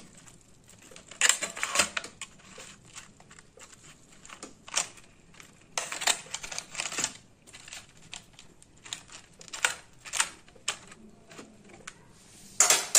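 A metal fork clicking and scraping against chicken pieces and the parchment-lined air fryer basket as the pieces are turned over, in irregular clusters of taps.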